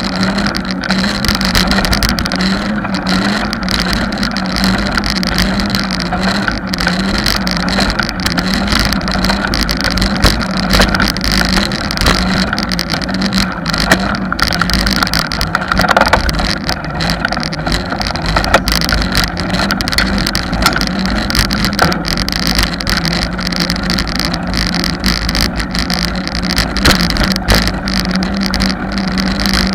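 Bicycle riding along an asphalt road: steady tyre and wind noise picked up by a bike-mounted camera, with a low hum that wavers slightly and scattered small clicks and rattles.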